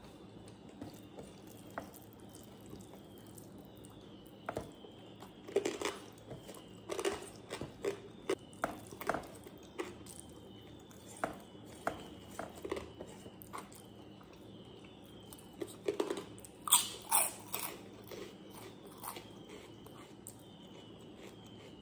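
Close-up eating sounds: rice and dal eaten by hand being chewed, with wet mouth clicks and smacks coming and going, most of them between about four and twenty seconds in and the loudest cluster at about seventeen seconds.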